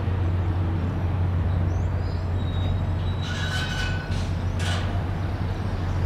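Steady low rumble of vehicle traffic, with faint high chirps from the swirling flock of birds and two short hissing bursts midway.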